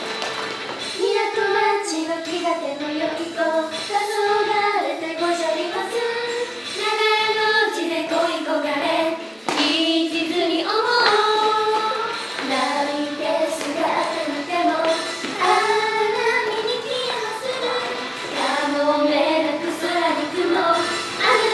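Idol pop song with young female voices singing the melody over the backing track, the music for a dance routine.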